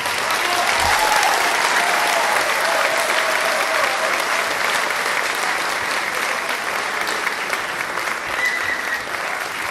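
Audience applauding steadily after the music ends, with a few voices calling out over it in the first few seconds.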